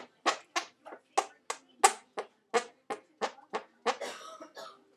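A quick run of about a dozen short, sharp fart noises, roughly three a second, ending in one longer, drawn-out one about four seconds in.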